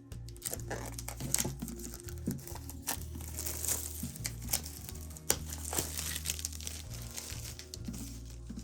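Packaging crinkling and crackling as it is handled and opened, in many quick irregular rustles, over quiet background music.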